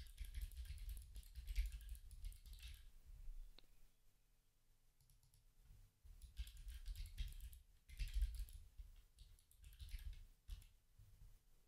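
Faint computer-keyboard typing in three quick runs of keystrokes, with short pauses between them.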